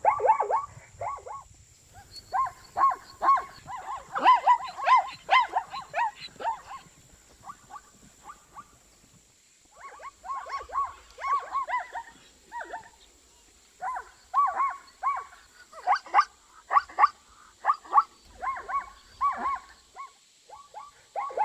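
Zebra calling: quick series of short, pitched barking calls, several a second, in bouts broken by brief pauses.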